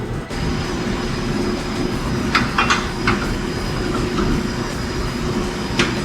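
Steady mechanical running hum with a held low tone, and a few short metallic clicks about two and a half seconds in, again near three seconds, and once more near the end.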